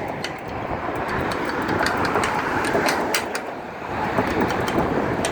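Road traffic passing, a steady rushing noise that eases briefly a little past the middle, with scattered light clicks.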